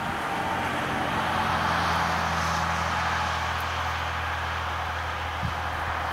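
Diesel railcar engine running steadily and getting louder as the train approaches out of sight, with rising wheel-on-rail noise.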